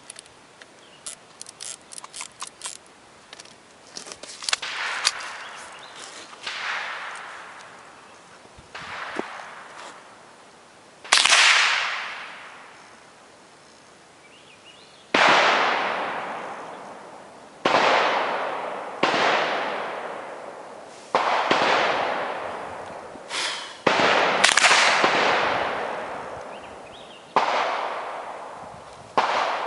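Gunshots at a shooting range, more than a dozen fired at irregular intervals a second or a few seconds apart, each with a long echoing tail. A quick run of light clicks comes in the first few seconds.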